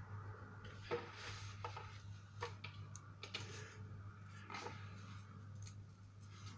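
Faint handling of paper and drawing tools on a table: the sheet rustles as it is shifted, with several small clicks and taps as pencils and a marker are set down and picked up, the loudest about a second in. A low steady hum runs underneath.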